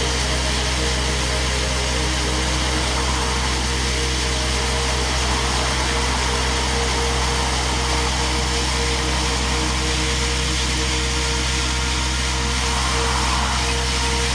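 Diesel engine of a T5 road-coring trailer running steadily under load while its hydraulic motor turns a 300 mm core barrel cutting into the asphalt, water-flushed. Traffic swells past now and then.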